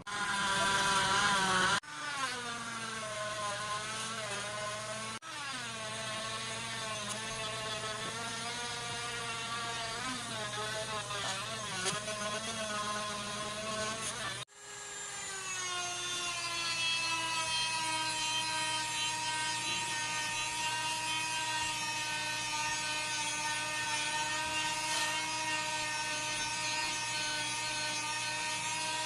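A small electric power tool's motor runs, its pitch wavering up and down as it is pressed against the work. It cuts out abruptly about 2, 5 and 14 seconds in, and after the last break it runs at a steady pitch.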